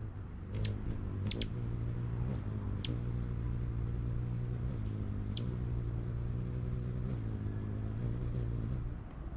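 A motor vehicle's engine running with a steady low hum that shifts slightly in pitch a few times and fades out about nine seconds in. A few very short, high chips sound over it in the first half.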